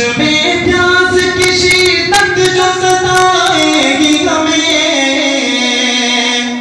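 A man singing a naat, an Urdu devotional poem, solo into a microphone, drawing out a long wordless vocal line on sustained, held notes that step down to a lower pitch about halfway through.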